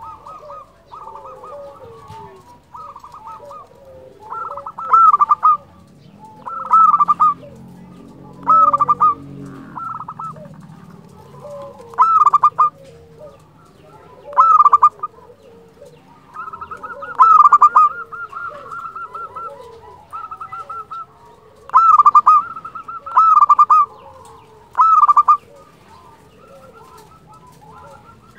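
Zebra dove (perkutut) singing a flute-like song: rapid repeated cooing notes, with louder ringing phrases every two to three seconds.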